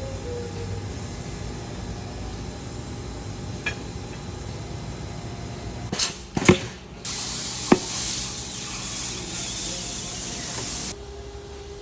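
A few sharp metallic knocks, then compressed air hissing loudly for about four seconds before cutting off suddenly.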